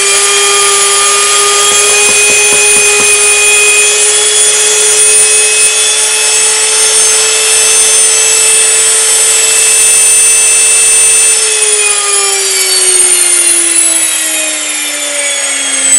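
NutriMill Classic electric grain mill running at full speed milling wheat berries: a loud, steady high whine. About eleven seconds in, the whine falls steadily in pitch as the motor slows down, which sounds like an airplane setting down.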